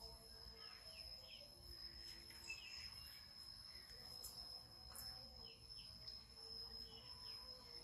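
Near silence: faint room tone with a steady high-pitched whine and a few faint, scattered short chirps.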